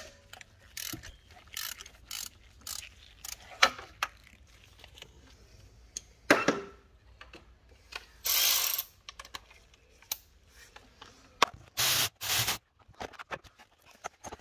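Hand ratchet with an E14 inverted Torx socket clicking in short strokes as it backs out the bolt that holds the serpentine belt tensioner. About halfway through come a couple of longer, noisier runs of clicking.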